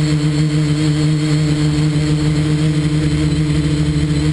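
Multirotor quadcopter's brushless motors and propellers running with a steady hum, heard close and loud from the camera mounted on its frame.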